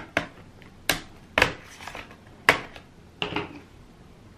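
The plastic bottom case of an Acer Aspire One Cloudbook 11 laptop being pried off its palm rest with a small metal pry tool: its snap clips pop loose one after another as a series of sharp clicks, about six, unevenly spaced, with a brief scrape of the tool along the seam.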